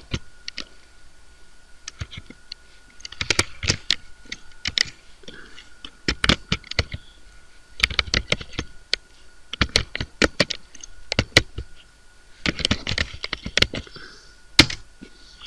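Typing on a computer keyboard: several runs of quick keystrokes with short pauses between them, and one louder, sharper click near the end.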